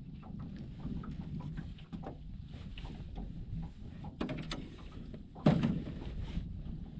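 Small waves lapping and slapping irregularly against the hull of a small boat, with one heavy thump about five and a half seconds in.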